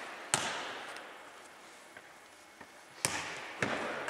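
Football being kicked and bouncing on a wooden sports-hall floor: one sharp hit about a third of a second in, then two more about three seconds in, half a second apart, each ringing on in the big hall's echo.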